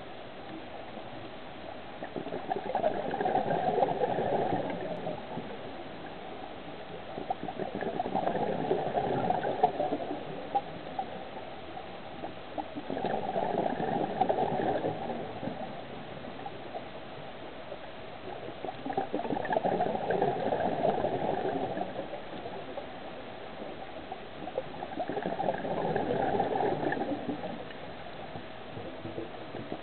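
Scuba regulator breathing underwater: five bursts of exhaled bubbles, each two to three seconds long and about six seconds apart, with a quieter steady hiss between breaths.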